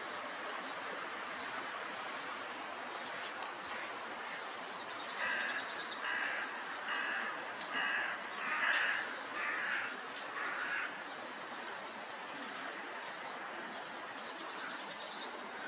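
Hooded crow cawing: a run of about seven caws, evenly spaced a little under a second apart, starting about five seconds in, over a steady background hiss.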